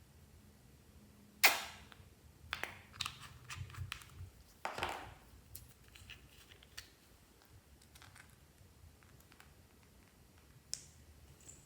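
Glossy slime being handled and mixed: scattered sticky clicks and crackles. A sharp snap about a second and a half in is the loudest sound, and a short squishy swish follows a few seconds later.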